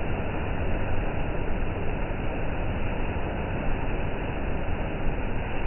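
Steady heavy rain, an even hiss with a low rumble underneath.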